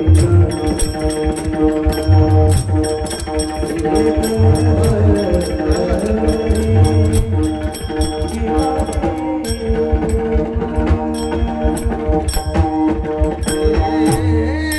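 Kirtan bhajan music: a sustained melody line over repeated low drum strokes, with sharp metallic cymbal clicks keeping the rhythm.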